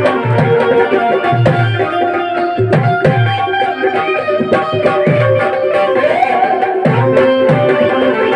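Instrumental passage of live devotional folk music: held harmonium chords over a steady, rhythmic hand-drum beat.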